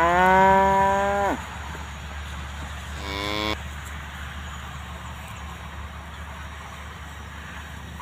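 Cattle mooing: a loud moo that rises in pitch at the start and holds for about a second and a half, then a shorter, quieter moo about three seconds in.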